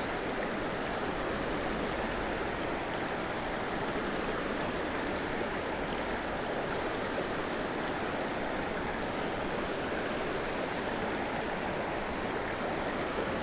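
Steady rush of flowing river water, an even hiss with no distinct splashes or other events.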